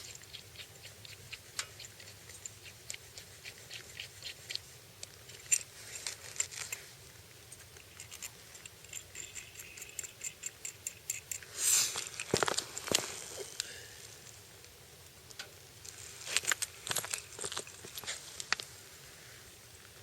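Light clicks and small rattles with no engine running: a run of ticks at about three a second, a louder scraping rustle about twelve seconds in, then a cluster of clattering clicks near the end.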